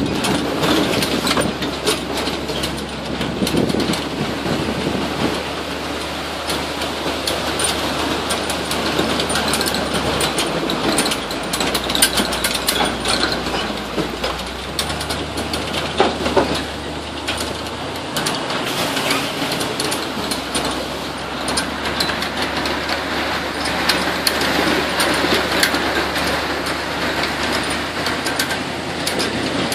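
Swamp buggy running along a dirt trail: a steady engine note with the clatter and rattle of the open vehicle's frame and railings. The engine note shifts to a new level a few times.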